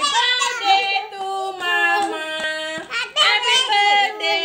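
A child's high voice singing, holding steady notes that step up and down between short breaks.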